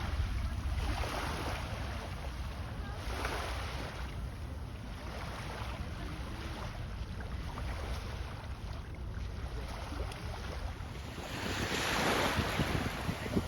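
Wind buffeting the microphone over rushing, splashing sea water, in uneven swells that grow loudest near the end.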